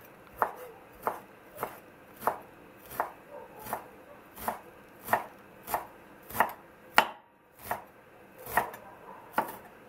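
Kitchen knife chopping fresh dill on a wooden cutting board: an even run of knocks of the blade on the board, about three every two seconds, with one harder stroke about seven seconds in.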